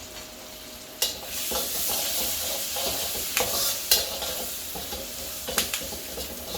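Garlic, curry leaves, chilli and cumin frying in hot butter in a pan, the sizzle jumping suddenly louder about a second in as they are stirred, with a few sharp knocks of the utensil against the pan.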